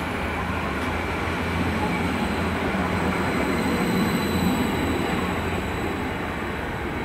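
Transport for Wales passenger train running past and pulling away along the platform: a steady, loud low rumble of the train's running gear and motors.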